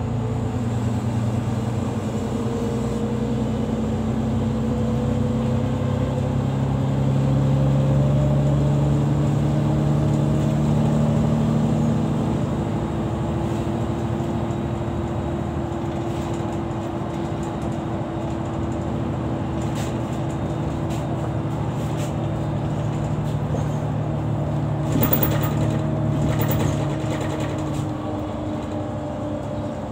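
Interior of a city bus on the move: the engine and drivetrain hum steadily under road noise, with a tone that slowly rises as the bus picks up speed and then settles lower. A short spell of rattling comes about 25 seconds in.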